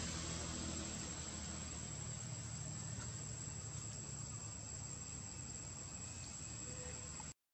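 Steady forest ambience: a constant high-pitched insect drone over a hiss, with a low hum beneath.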